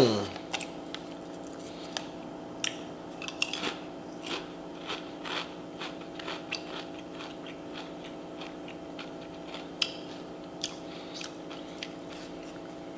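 A person chewing Doritos tortilla chips, with irregular crunches over a steady faint hum.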